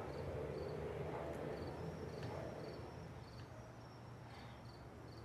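A cricket chirping in repeated short, high chirps, a few every second, over a faint low hum of night ambience.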